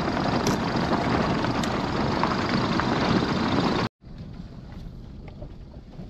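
A car driving on a dirt road, recorded from a camera mounted on the outside of the car: a loud, steady rush of wind and tyre noise on the gravel. About four seconds in it cuts to the much quieter road rumble heard inside the car's cabin.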